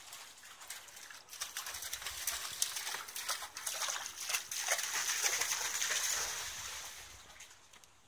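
A large dog wading through shallow pond water, its legs and muzzle churning up a run of splashes and sloshing. The splashing builds about a second in, is loudest a few seconds later, and fades out near the end.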